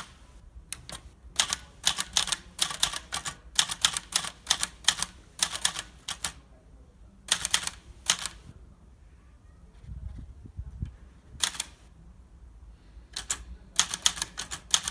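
Olivetti Lettera 32 manual portable typewriter being typed on: rapid runs of sharp key strikes, broken by a pause of a few seconds in the middle.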